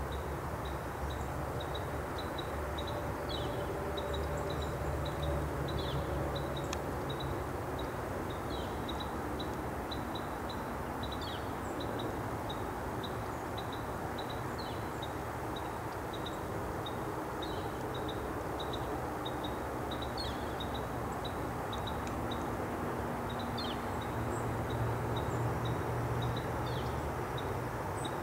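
Outdoor rural ambience: a steady low rumble like distant traffic, swelling slightly twice, under a high, even chirping about three times a second, with a few brief higher chirps scattered through.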